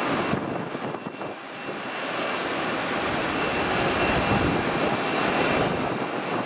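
Boeing 777-300ER's GE90-115B jet engines running during the landing roll-out: a broad rushing noise with a steady high whine, growing louder about two seconds in.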